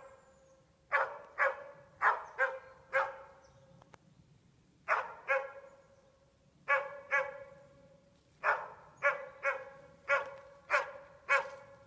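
A moose-hunting dog barking at a moose it is holding at bay, in clusters of two to six sharp, pitched barks with brief pauses between.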